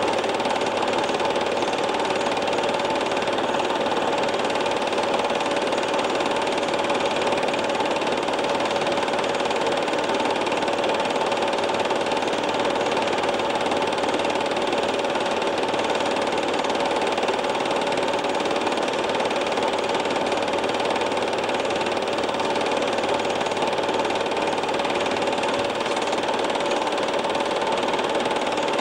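Steady mechanical running noise with a constant hum, unchanging throughout.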